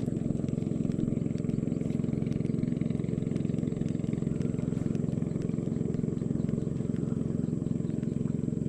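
Small boat's engine running steadily, an even low drone with faint scattered ticks over it.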